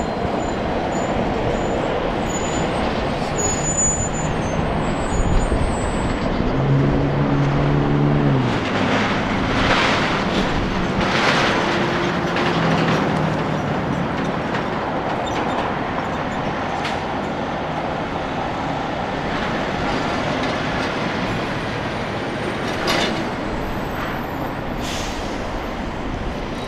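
Semi-truck's diesel engine running as the tractor-trailer pulls slowly through a turn, with a clear engine tone about seven seconds in and a few short air-brake hisses soon after, over steady road traffic noise.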